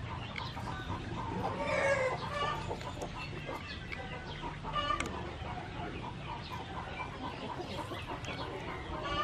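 Chickens clucking: short calls scattered throughout, the loudest cluster about two seconds in.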